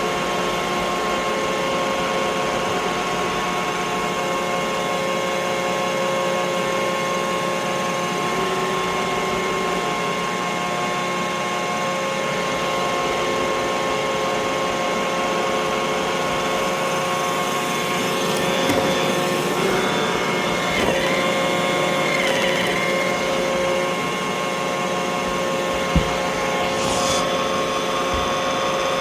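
Roomba robot vacuum running: a steady motor whine and hiss. Its pitch dips briefly twice about three quarters of the way through, and there is one sharp knock near the end.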